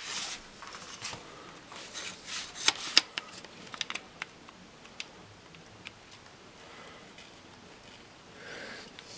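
Handling noise: a sharp click at the very start, then scattered small clicks and rustles for about four seconds, thinning out to a few faint ticks and a soft hiss.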